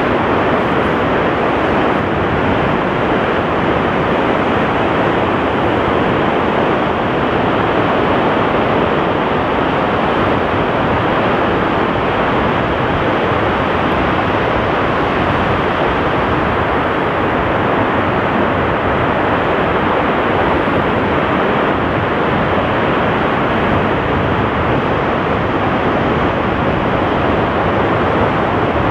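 Steady, loud rushing noise of the seashore, even throughout with no wave surges or breaks.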